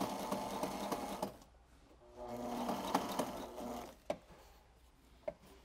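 Industrial tabletop sewing machine stitching bias binding onto clear vinyl in two short runs of about a second and a half each, with a pause between, followed by a couple of sharp clicks.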